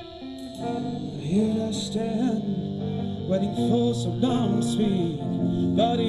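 Live band music with guitars: sustained chords, joined about a second in by a melodic line that slides and bends in pitch.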